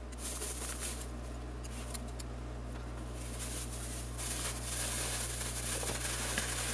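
Plastic bag rustling and crinkling as it is shaken and kneaded by hand to mix diced daikon and okra inside it, with a few light ticks at first and louder rustling from about four seconds in.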